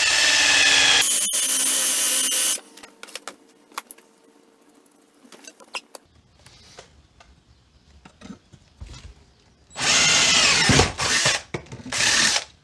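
Electric drill boring out a stripped head-bolt hole in an aluminium engine head, to take a coil thread insert. It runs with a steady whine for about two and a half seconds, stops, then runs twice more in short bursts near the end.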